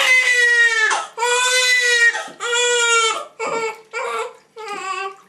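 Infant crying while being bathed. There are three long wails of about a second each, then three shorter, weaker ones toward the end. It is the crying a baby does at first on going into the bath water.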